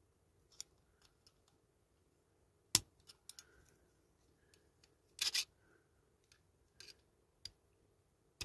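Small metal hand tools clicking and tapping against the parts of a model car as pieces are prised apart, in scattered sharp clicks, the loudest about three seconds in and a short cluster about five seconds in.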